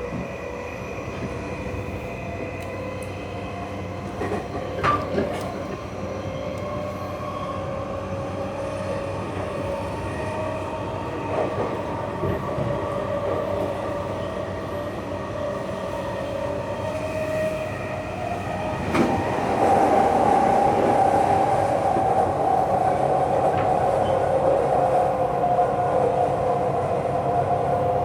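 Tokyu 3020-series electric train running between stations, heard from inside the car: steady wheel-and-rail noise with a held motor whine, a couple of knocks about five seconds in, and everything getting louder about two-thirds of the way through.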